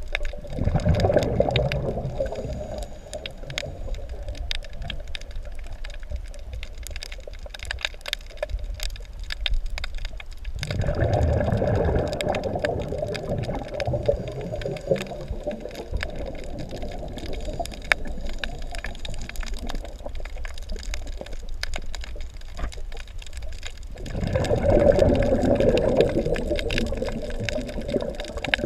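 Underwater recording of a scuba diver's exhaled bubbles gurgling past the camera three times, about every twelve seconds, over a steady underwater crackle of tiny clicks.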